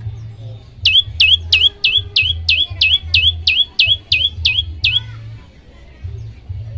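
Prenjak lumut singing a fast run of about a dozen identical sharp notes, each sweeping down in pitch and hooking up at the end, about three a second. The run stops about five seconds in.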